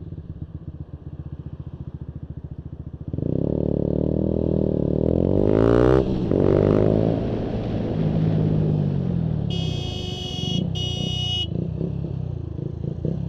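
Motorcycle engine ticking over quietly, then pulling away about three seconds in and accelerating, its pitch rising and falling through gear changes. Near the end a horn sounds twice in quick succession.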